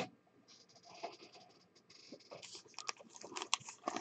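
Hands opening a sealed Panini Select trading-card box and handling its foil packs: a run of light crinkles, scratches and clicks of plastic wrap and cardboard, getting busier after about two seconds.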